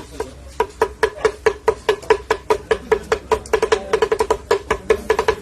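Metal cooking utensils striking a hard cooking surface in a quick, uneven rhythm, about five strikes a second, each with a short ringing tone, as in street-food chopping of meat.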